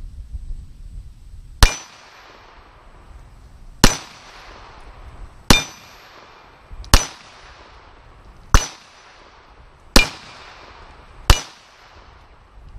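Springfield Armory 1911A1 stainless pistol test-fired seven times at a slow, even pace, about one shot every one and a half seconds. Each shot is loud and sharp, followed by a short decaying echo.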